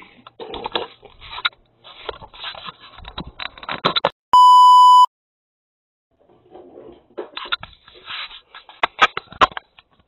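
Rustling, clicks and knocks of a doorbell camera being handled and pulled off its mount, heard through its own microphone. About four seconds in comes one loud steady bleep tone, under a second long, followed by a couple of seconds of silence. Then the handling clicks and rustles start again.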